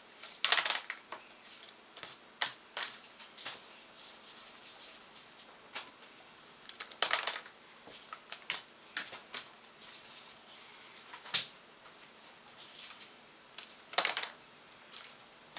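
Crab trotline bait bags being emptied and refilled by hand with foam Nerf darts: irregular clicks, snaps and rustling. There are a few louder bursts of rustling, about half a second in, midway and near the end.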